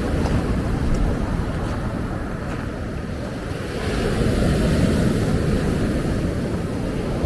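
Ocean surf breaking and washing up a beach, with wind rumbling on the microphone; the surf swells up again about four seconds in.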